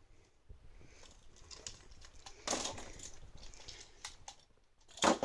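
Handling noise from a plastic action figure being turned in the hand: scattered light clicks and rustles, with a louder rustle about two and a half seconds in and again at the very end.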